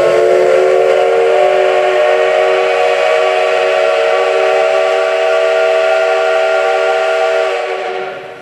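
C62 2 steam locomotive's whistle blown wide open: one long, loud blast of several notes sounding together as a chord, held steady over a hiss of escaping steam, then fading out about seven and a half seconds in.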